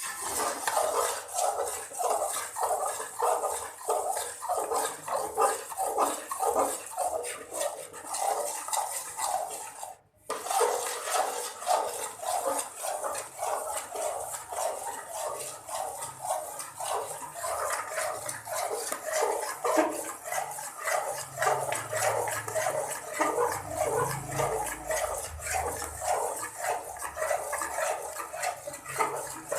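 A spoon scraping the bottom of a cooking pan while stirring thick chana dal halwa, keeping it from sticking, in a steady rhythm of about two to three strokes a second. There is a short break about ten seconds in.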